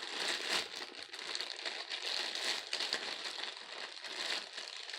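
Slime being squeezed and worked in the hands, a continuous run of small sticky clicks and crackles.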